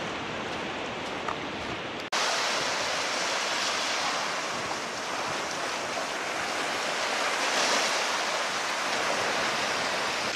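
Steady wash of sea surf, an even rushing noise; about two seconds in it cuts abruptly to a louder, hissier stretch of the same.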